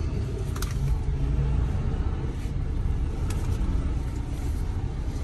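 Semi truck's diesel engine and drivetrain rumbling steadily at low speed, heard from inside the cab, with a couple of faint clicks.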